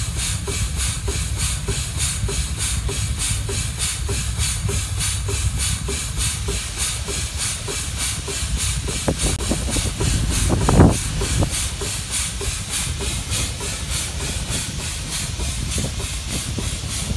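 Steam traction engine running, its exhaust chuffing at about three even beats a second over a steady hiss and a low rumble. A short, louder burst comes about ten and a half seconds in.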